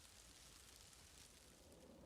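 Near silence: a faint, steady outdoor hiss with fine light ticking and a low rumble underneath.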